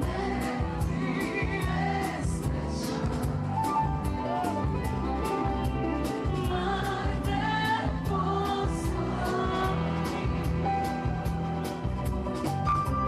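Pop-rock song: a singer over a steady drum beat with hi-hat strokes and bass.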